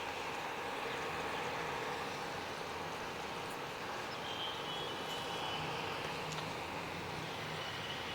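Steady, even hiss of a pot of ginger and turmeric pulusu simmering on the stove, with no distinct knocks or clinks.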